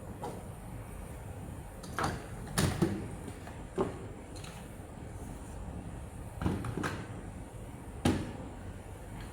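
Magnetic light modules clicking and knocking as they are fastened onto an aluminium lighting track: about seven sharp clicks at irregular intervals.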